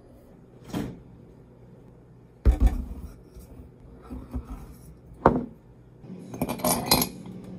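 Kitchenware handled on a countertop: a ceramic mug and a bottle of iced coffee set down, with a heavy knock about two and a half seconds in, a sharper one about five seconds in, and a short clatter near the end.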